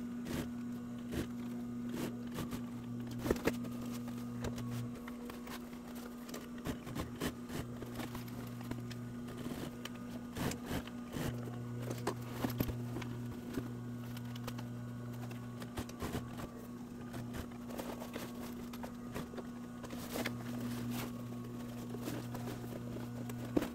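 Industrial sewing machine running while clear vinyl and soft-top fabric are stitched together: a steady motor hum, with a lower hum that comes and goes as the machine stitches in short runs. Irregular clicks and rustles come from the stiff vinyl and fabric being handled.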